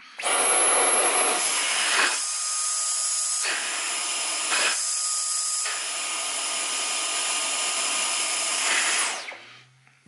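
Dyson V11 cordless stick vacuum running on auto mode, pulling air through a PVC pipe adapter into a suction gauge. It is a steady high-pitched whine with rushing air; the rushing part drops away twice for about a second. Near the end the motor shuts off and spins down.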